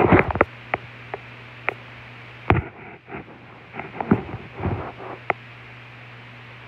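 Phone microphone handling noise: scattered rustles and short bumps as the phone moves against skin and bedding, over a steady low hum.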